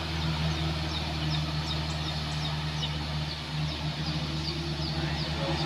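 Diesel engines of loaded light trucks labouring up a steep grade, a steady low drone. Faint short high chirps repeat over it.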